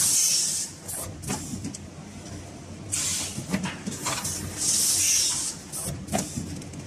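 Automatic bowl vacuum-sealing machine running: three bursts of air hissing, a few seconds apart, with several sharp metallic clacks from the sealing press and a steady machine hum underneath.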